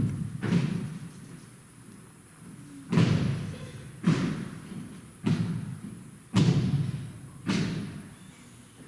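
Color guard rifle drill: about seven sharp thuds of drill movements striking a hard floor, each with a short echo. Two come close together at the start, then after a pause five more follow about a second apart.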